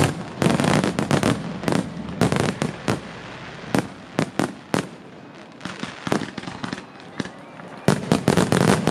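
Fireworks finale: aerial shells bursting in rapid, overlapping volleys of bangs, thinning to scattered single reports midway, then a last dense volley near the end.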